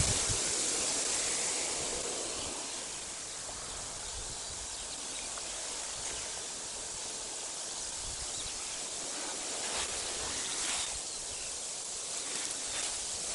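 Steady outdoor wind noise, a rushing hiss with gusty low rumble on the microphone near the start, and a few faint clicks near the end.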